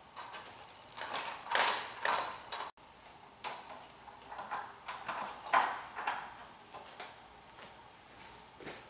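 Horizontal window blinds being handled, the slats rattling and clattering in a string of irregular rattles and clicks, loudest early on and again around the middle.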